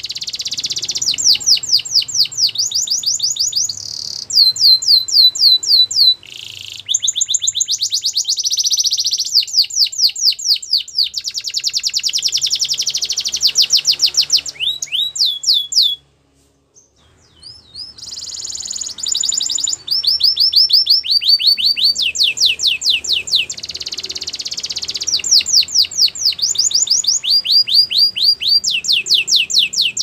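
Caged yellow canary singing: a long song of rapid trilled phrases, each a quick run of repeated high, upward-sweeping notes, shifting from one trill to the next. The song breaks off briefly about halfway through, then resumes.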